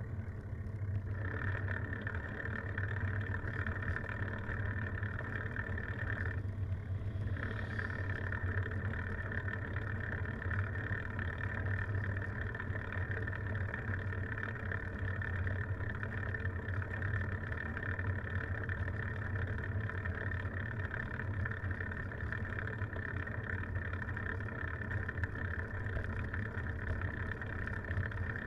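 Steady rumble and hiss of wind and tyre noise on a camera carried on a bicycle riding along an asphalt road; the hiss briefly drops twice.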